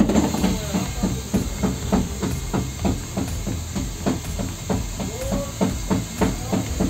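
A steady series of sharp knocks, about three a second and varying in strength, over a constant hiss.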